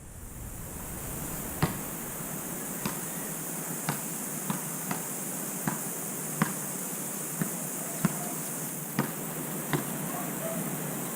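Steady high hiss with about eleven sharp, irregularly spaced clicks, recorded through a GoPro Hero 5 Session's microphone: the camera's audio fault, noise and popping in the recording.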